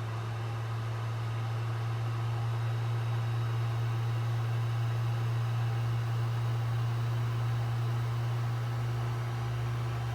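Creality Ender 3 3D printer's cooling fans running steadily after power-up, a constant low hum with a faint whirring above it.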